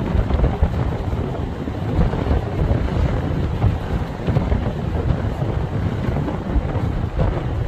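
Strong storm wind battering the microphone: a continuous rough rumble that rises and falls in gusts.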